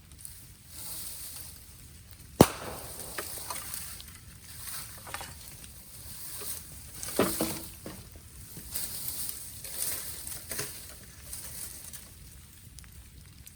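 Bamboo burning in an open fire, crackling and hissing, with one sharp loud pop about two and a half seconds in and further scattered snaps.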